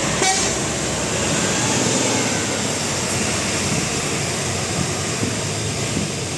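Steady, loud rush of road traffic: a large vehicle's engine and tyres going by.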